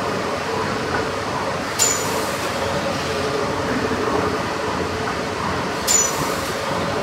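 Sir William Prescott triple-expansion steam pumping engine running: a steady mechanical churning and hum from its moving rods and rams, with a sharp metallic clink twice, about four seconds apart.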